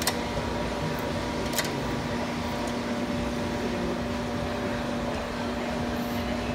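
A steady mechanical hum from a running fan or motor, with a couple of faint clicks from the brass valve core removal tool being handled.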